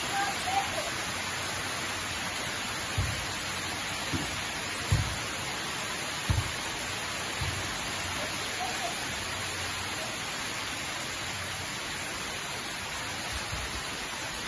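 Pouring rain falling steadily, a dense even hiss. Over it come several short, dull thumps between about three and eight seconds in as the volleyball is hit or lands on the sand.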